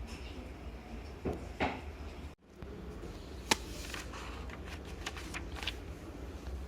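A few short knocks and clicks, like things being handled or a drawer or door being moved, over a steady low background hum. The sound drops out for a moment about two seconds in.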